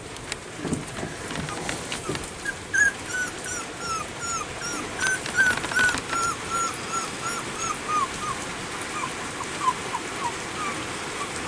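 Four-week-old cockapoo puppy whimpering: a long run of short, high whines, about three a second, that slide lower in pitch near the end.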